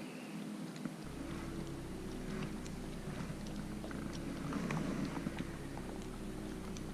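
Spinning reel being cranked to retrieve a bait: a low, steady whir with faint scattered ticks, coming in about a second in.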